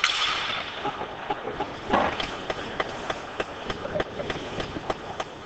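Ice hockey play on the rink: sticks and puck clacking and skates scraping on the ice, with a loud hit right at the start and another heavy knock about two seconds in, as against the boards, followed by a string of sharp clicks.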